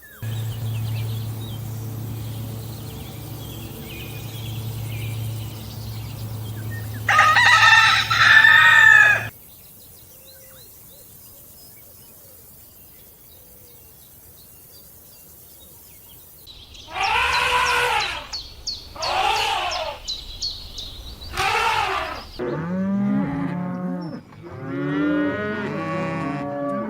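Farm animal calls, including cattle mooing. A steady low sound runs for the first nine seconds, with a loud call near its end. After a quieter stretch, about seven repeated calls follow in the last ten seconds.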